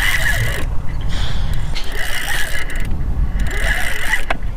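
Spinning reel working against a hooked fish: a ratcheting whir of the reel's gears and drag in repeated bursts of under a second each.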